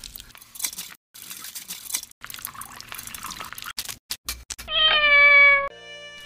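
Shaved ice being spooned and poured into a watermelon bowl, a crackling rustle with many small clicks. Then a cat meows once, about a second long and slightly falling in pitch, the loudest sound, near the end.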